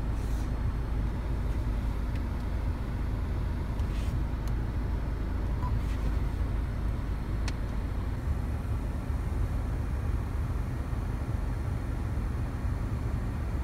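Steady low rumble of a stationary car, heard from inside its cabin, with a few faint clicks; the sharpest comes about seven and a half seconds in.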